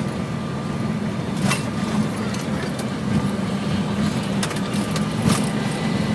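Steady cockpit hum of a Boeing 727-200, engine and air-conditioning noise, with a few short clicks.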